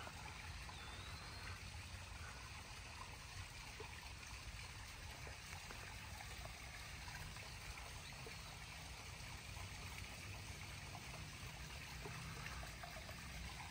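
Faint, steady trickle of water from a backyard koi pond waterfall.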